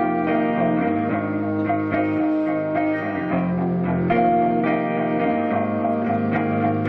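A guitar played live, chords struck again and again and left ringing into one another.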